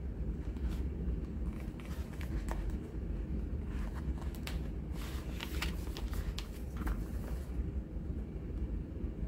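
Glossy paper album pages and a card insert being handled, with light rustles, crinkles and small clicks that thicken in the middle and stop near the end, over a steady low background rumble.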